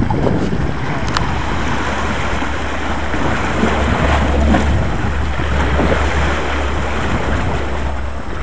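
Sea waves washing against a rocky shore, with wind buffeting the microphone as a low rumble that is strongest about halfway through.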